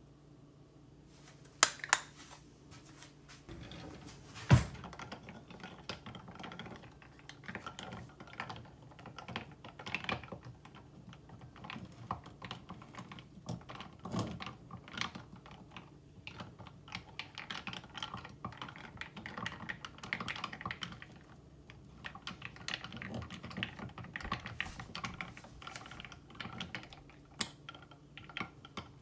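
Ice cubes clinking against a tall glass as an iced drink is stirred: a few sharp knocks in the first few seconds, then quick, irregular clicking that runs on with a short lull past the two-thirds mark.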